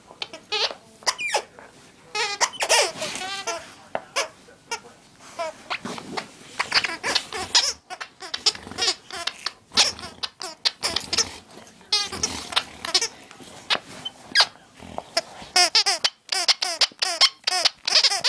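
Squeaky dog toy squeaked over and over as a dog chews it: a rapid, irregular run of short, high, wavering squeals.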